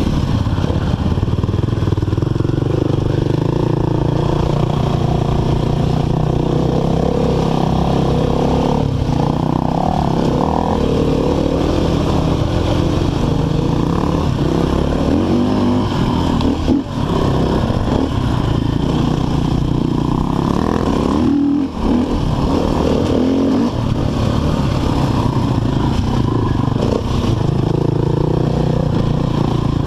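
Enduro dirt bike engine running close-up from the bike, throttle rising and falling as it rides the trail. Twice, past the middle, the engine drops off briefly before picking up again.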